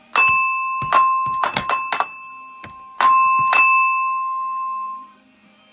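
A small hammer tapping on the stuck water pump of a Ford 4.6 L V8 to break it loose. There is a quick run of sharp metal strikes over the first few seconds, each leaving a clear ringing tone that dies away about five seconds in.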